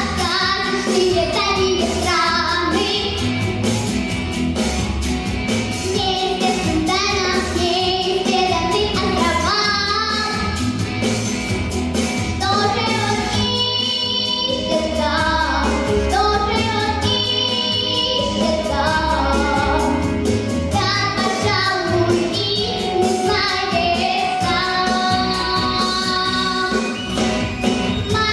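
A young girl singing a pop song over a backing track with a steady bass beat.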